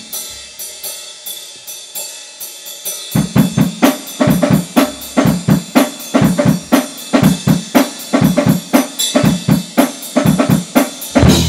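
Grunge/alternative rock recording in an instrumental stretch led by the drum kit: light, regular hits at first, then about three seconds in the full kit comes in loud, with bass drum, snare and cymbals in a fast steady beat.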